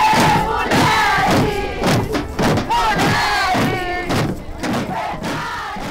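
Crowd of women shouting and chanting over drums beaten with sticks in a steady rhythm of about two strokes a second, with one woman yelling through a megaphone.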